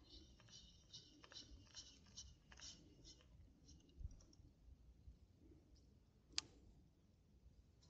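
Faint clicking from a spinning fishing reel being handled: light ticks a few a second for about three seconds, then one sharp click a little after six seconds.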